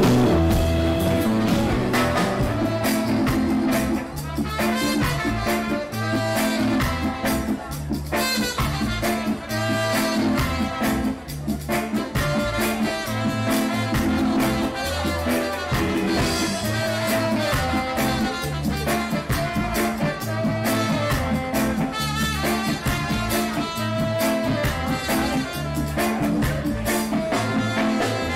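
Live band music, with saxophone and trumpet playing a melody over keyboard, bass and drums. In the first few seconds there is a cut from another band's music with saxophone and guitar.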